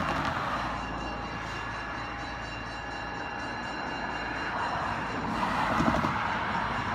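Cars driving past on the road at a railway crossing, their tyre and road noise swelling as one passes at the start and a louder one about six seconds in. Under it runs the low, steady drone of a Budd rail diesel car idling toward the crossing.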